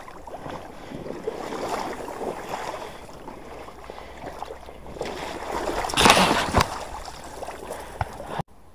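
Splashing and sloshing of shallow marsh water with reeds and sedge brushing past, as someone pushes through a duckweed-covered marsh. A louder rush of splashing comes about six seconds in, with a couple of sharp knocks after it, and the sound cuts off abruptly just before the end.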